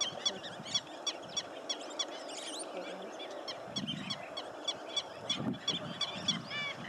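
Wild birds calling: one bird repeats a short high note about three times a second, with a few rising calls near the end and lower calls from other birds about four to five seconds in.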